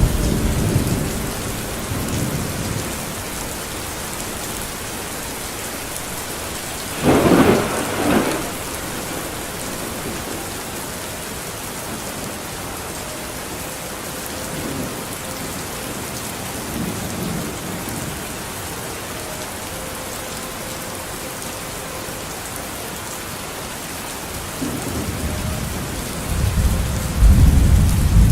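Steady rain falling, with a thunderstorm: a short sharp clap of thunder about seven seconds in, and low rolling thunder building up near the end.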